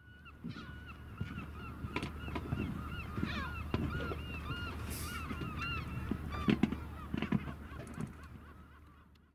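Sheep crammed in a livestock truck: scattered knocks and coughs, and a short sneeze about five seconds in, over a steady low hum. Through the first six seconds runs a quick series of short, high, honking squeaks, two or three a second, fading out after that.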